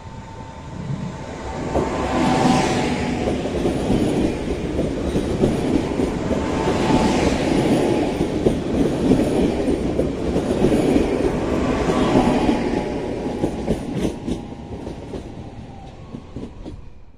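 Electric multiple unit passenger train running past along the platform: a steady rumble of wheels on rail with clacking over the joints and a faint hum. It builds over the first two seconds, stays loud with swells every few seconds, then fades as the train draws away, and cuts off abruptly at the end.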